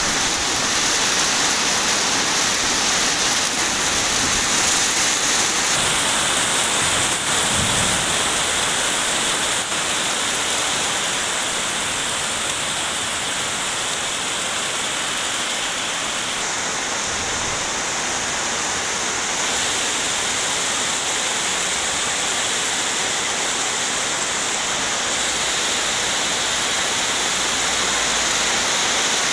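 Heavy rain falling steadily as a dense, even hiss. Its tone shifts slightly about six seconds in and again near the middle.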